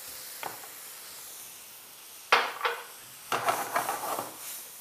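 Food sizzling gently in a non-stick frying pan while a utensil knocks and scrapes against the pan as the contents are stirred: two sharp knocks a little over two seconds in, then a second of rattling and scraping.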